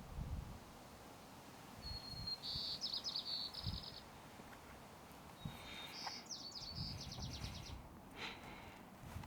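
A small songbird singing twice, each phrase a thin high note running into a rapid trill, with a few soft low thumps in between.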